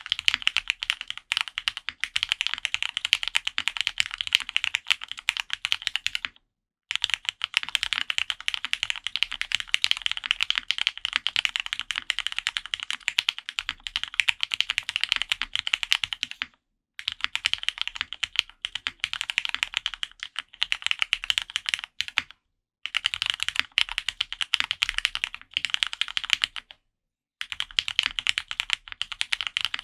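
Steady fast typing on a custom mechanical keyboard: an F1-8X with a polycarbonate case, FR4 plate and lubed Cherry Nixie switches under Linworks Burgundy keycaps, a dense patter of keystrokes. The typing breaks off four times for a brief silence.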